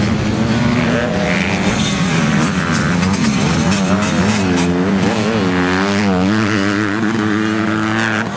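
Motocross bike engines revving on the track, the note rising and falling with the throttle. The pitch swings up and down repeatedly from about four seconds in.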